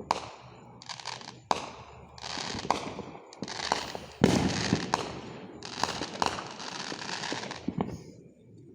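Aerial fireworks going off in quick succession: about eight sharp bangs, each followed by roughly a second of crackling. The loudest bang comes about four seconds in.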